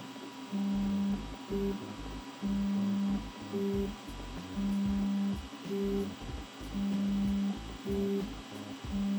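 Creality K1C 3D printer printing: its stepper motors hum at steady pitches in a pattern that repeats about every two seconds, a longer low tone followed by short higher and lower notes as the print head repeats its moves. A faint steady high tone runs underneath.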